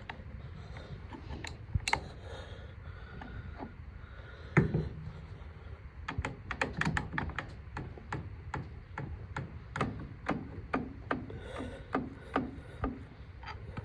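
Metal parts of a square-baler knotter being worked by hand: a sharp clack about two seconds in, a heavier knock a little later, then a run of light irregular clicks, a few a second.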